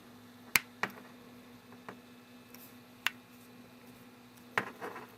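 Sharp plastic clicks, about five at irregular intervals, as the edges of a replacement iPod Touch 5th generation screen are pressed around the frame and snap into place.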